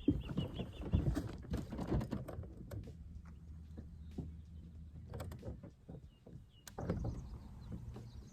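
Fishing tackle handled on a boat: scattered clicks and knocks, heavier at the start and again near the end, over a low steady hum.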